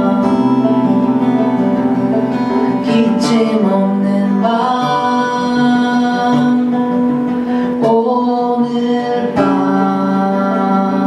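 Acoustic guitar music with long held melody notes over it, changing pitch every few seconds.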